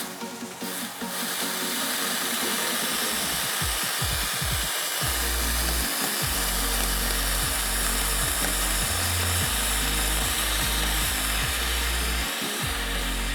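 Background music with a heavy, blocky bass line under a steady, harsh hiss.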